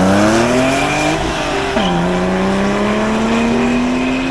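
Porsche 911's flat-six engine accelerating hard away. Its note rises through one gear, drops sharply at an upshift a little under two seconds in, then climbs again more slowly in the next gear.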